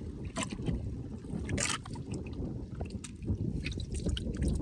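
Water sloshing against the side of a wooden outrigger boat over a steady low rumble of wind, with a sharper splash about a second and a half in.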